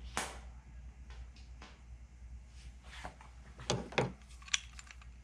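Light clicks and taps of small metal parts being fitted by hand into a rivet hole in a thin aluminium skin, sharpest in a few quick clusters about three and a half to five seconds in.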